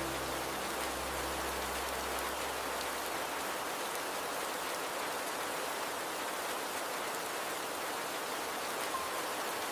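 Steady soft rain mixed with the rush of a flowing river, an even hiss with no breaks.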